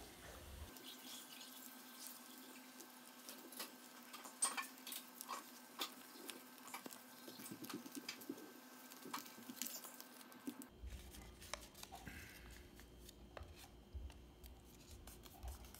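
A printed paper template being folded and creased by hand along its diagonal fold lines: faint, scattered crinkles and rustles of the paper.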